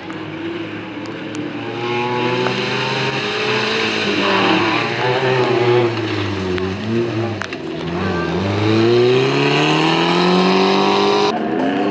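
Off-road rally 4x4's engine revving hard under acceleration, its pitch climbing, dipping with gear changes and lifts of the throttle, then climbing again. The sound changes abruptly near the end.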